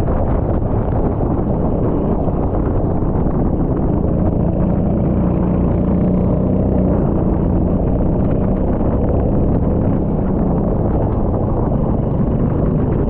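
Rental kart engine running at speed, a loud, fairly steady drone.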